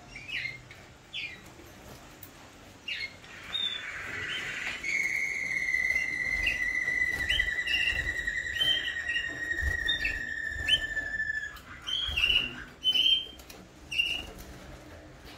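Waterslager song canaries singing: scattered short chirps and call notes, and about five seconds in, one long rolled note that falls slowly in pitch and lasts some seven seconds.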